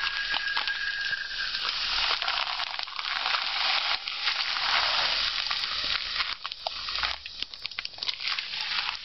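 Chopped garlic sizzling in hot oil in a pot, a steady frying hiss, while dry rice grains pour from a plastic bag into a mug. Near the end the hiss thins into scattered ticks and crinkles.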